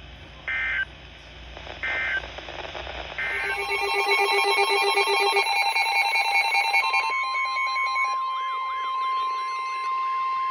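Emergency Alert System broadcast header: three short bursts of data noise about a second and a half apart, then alert tones. First several steady tones pulse together; from about seven seconds a single steady tone sounds with a siren-like wail rising and falling about twice a second over it.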